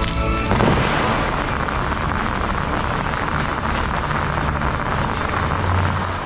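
Music stops about half a second in, cut off by a sudden loud rush of water as the dancing fountain's full row of jets shoots up. A steady hissing spray of water follows.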